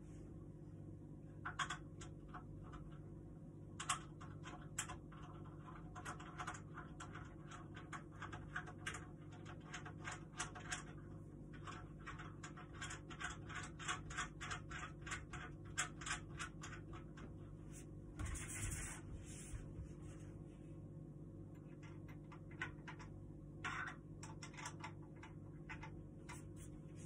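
Assembly of a small wooden flat-pack table: runs of short clicks and scrapes at about four a second as screws or fittings are worked by hand, with a few louder knocks. A steady low hum sits underneath.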